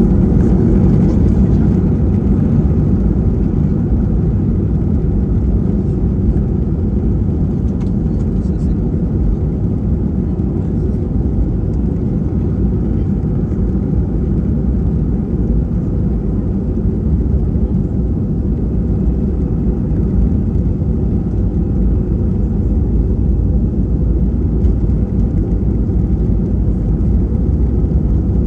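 Airbus A320-family airliner on its takeoff roll, heard inside the cabin: the jet engines at takeoff power and the run down the runway make a loud, steady, deep rumble, a little louder in the first couple of seconds.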